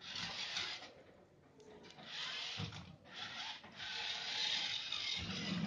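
Rasping, rubbing noise in several bursts, the longest nearly two seconds, with a couple of low thumps.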